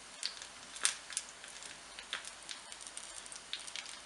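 Hot oil crackling and popping as turon (banana spring rolls) fry: irregular sharp little crackles over a steady hiss, a few each second.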